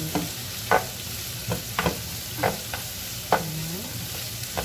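Onions, carrots and garlic sizzling in a frying pan while a slotted spatula stirs them. About six short scraping taps of the spatula against the pan ride over a steady sizzle.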